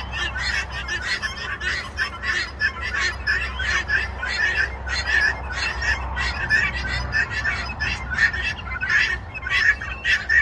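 A dense, unbroken chorus of many birds chirping and squawking at once, the calls coming several times a second and overlapping, over a low steady hum.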